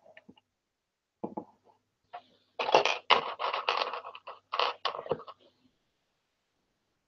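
Loose LEGO plastic pieces clattering as hands rummage through a pile of bricks on a tabletop: a short rattle about a second in, then a longer run of clicking and rattling that stops well before the end.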